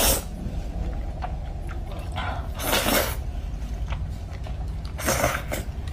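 Spicy instant noodles being slurped off chopsticks in three short slurps: one at the start, one about three seconds in and one near the end. Small clicks of chopsticks and chewing come in between.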